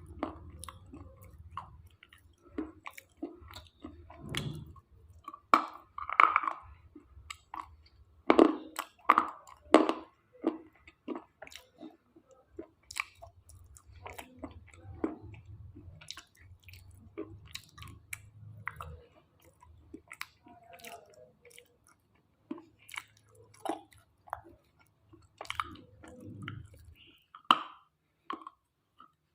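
Close-miked chewing and biting of crunchy slate pieces: irregular sharp crunches and grinding bites, loudest in a cluster about a third of the way in.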